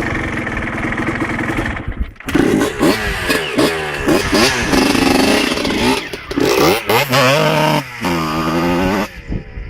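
Two-stroke motorcycle engine running steadily, then after about two seconds revved over and over in quick blips, its pitch sweeping up and down. It drops back down near the end.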